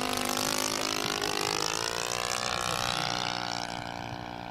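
Combustion engine of a 1:6-scale radio-controlled Arado 196 model in flight, its pitch dipping, then rising and falling again as the plane passes, growing fainter near the end.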